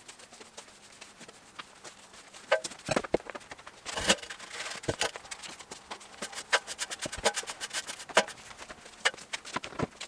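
Broom sweeping a concrete floor: the bristles scrape in short strokes, with many sharp ticks, coming thick and fast in the second half.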